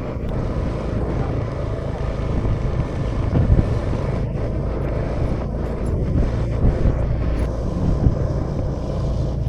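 2018 Honda Vision scooter's single-cylinder engine running steadily under way, with road and wind noise on the action camera.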